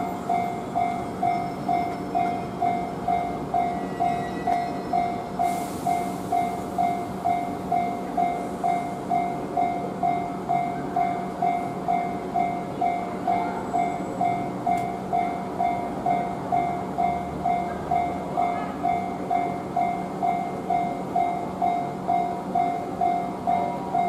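Japanese railway level-crossing alarm ringing: an electronic bell striking evenly about twice a second, warning of a train at the crossing. A train's running noise sits underneath.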